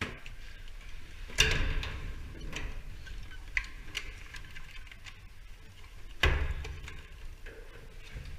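A hand caulking gun being squeezed and handled inside a sheet-metal ventilation duct: scattered sharp clicks, with two louder knocks against the metal, one about a second and a half in and one about six seconds in.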